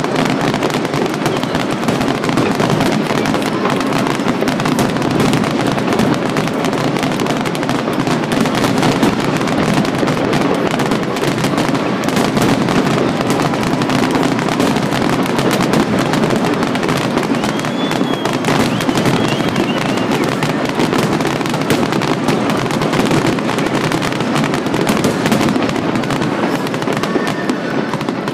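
Aerial fireworks display: many shells bursting in rapid succession, an unbroken barrage of bangs and crackle with no pause between them.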